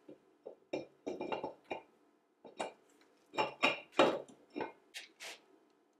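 Metal brake disc rotor sliding over the hub's wheel studs and seating on the hub: an irregular run of metallic clinks and taps, the loudest about three and a half to four seconds in.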